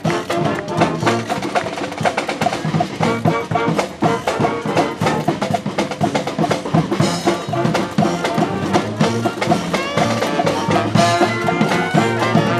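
Street brass band playing: horns carrying a melody over a steady drumbeat.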